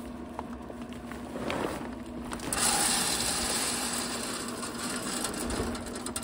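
Wood pellets pouring from a plastic bag into a pellet smoker's hopper. The bag crinkles and a few pellets click at first, then from about two and a half seconds in a steady rattling hiss of pellets streams into the hopper.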